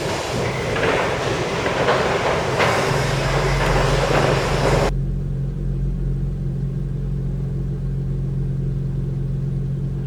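Cargo-unloading machinery at a transport ship: a loud grinding, clattering metallic noise that cuts off suddenly about five seconds in, leaving a steady low engine drone.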